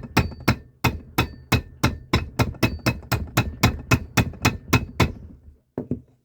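Hammer striking a copper rivet to set it through the leather layers of a knife sheath: a steady run of sharp metallic blows, about three a second, then a short pause and a quick double tap near the end.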